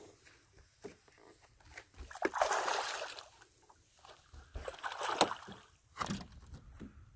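A hooked bass splashing at the surface beside the boat: two long bouts of splashing, about two and five seconds in, and a shorter splash near the end.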